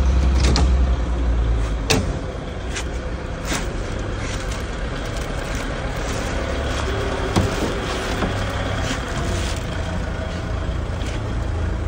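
Sharp clicks, snips and knocks of pliers cutting the bindings and plastic wrap on a wooden engine crate, over a steady low rumble like a vehicle engine running, which is louder in the first two seconds.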